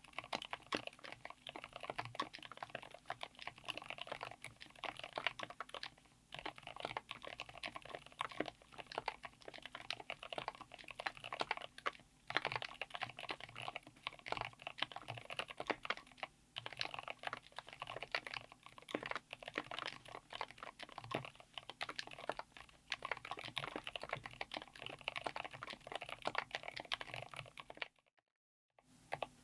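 Fast typing on a mechanical keyboard fitted with Gateron Smoothie Mint silent linear switches (full POM), in an aluminium case with an FR4 plate: a dense run of keystrokes that stops for a moment near the end.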